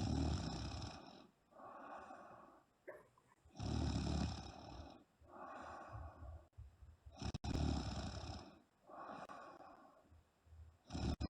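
A woman snoring heavily in her sleep: four loud snores about three and a half seconds apart, with a softer breath sound between each.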